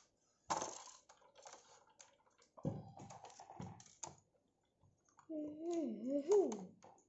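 Plastic and metal parts of a desk-lamp stand being handled and fitted together: scattered light clicks and taps as a metal pole is pushed into its plastic base. A short stretch of voice comes in near the end.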